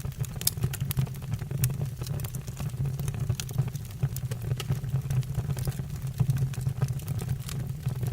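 Wood fire burning in a fireplace: a steady low roar of flames with frequent sharp crackles and pops from the burning logs.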